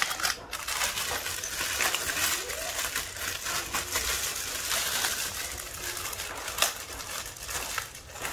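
Thin plastic packaging bag crinkling and rustling as it is handled and opened, with small metal hardware parts clinking. There is a sharper click about six and a half seconds in.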